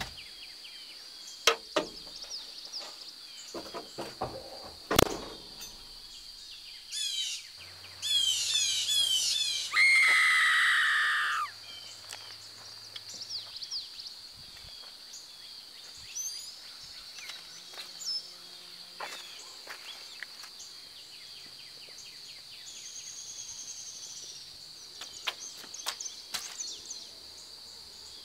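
Countryside ambience: a steady high insect drone, with bird calls that swell into a loud burst of chirping about eight to eleven seconds in. Scattered sharp clicks and light knocks come through, most in the first few seconds and again near the end.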